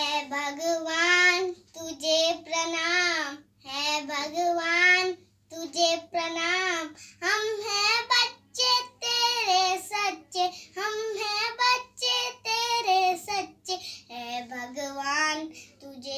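A child singing solo, unaccompanied, in short melodic phrases with brief breaks between them; the pitch wavers through each held note.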